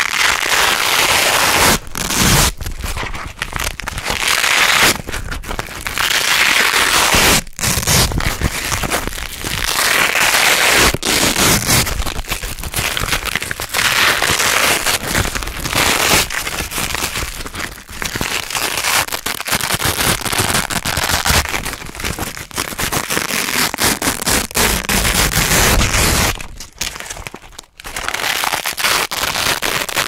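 Wide hook-and-loop (Velcro) strips being pulled apart by hand over and over: loud, crunchy crackling rips that follow one another with only brief pauses, the longest near the end.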